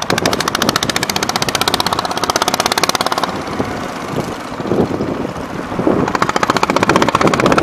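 Small boat engine running under way, with a fast, even pulsing beat that eases off about three seconds in and comes back strongly near the end.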